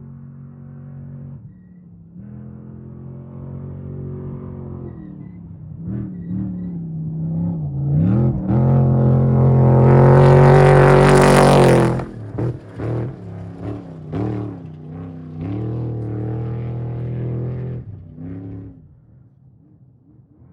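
An off-road race vehicle's engine approaching at high revs and growing louder. It passes close about twelve seconds in with a loud rush of noise, then drops off suddenly and pulls away with several throttle lifts and blips, fading near the end.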